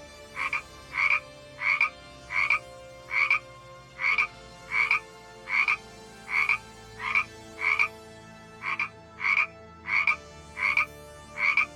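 Frog croaking over and over in short, evenly spaced croaks, about one and a half a second.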